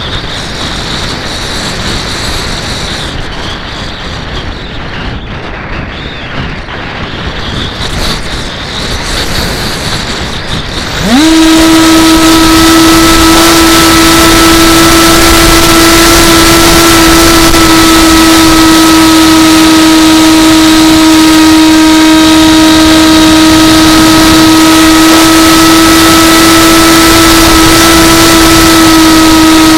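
Wind rushing over the microphone, then about eleven seconds in an AXN Floater RC plane's electric motor spins up quickly to a loud, steady whine and holds it at full throttle.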